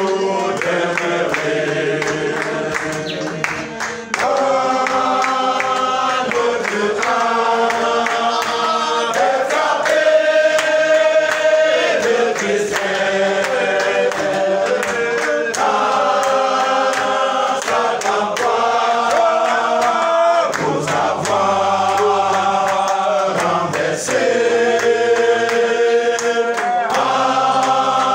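A congregation singing a worship song together in phrases of about two seconds, with hand-clapping keeping time.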